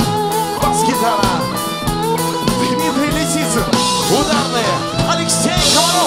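Band music with guitar and drum kit over a steady beat.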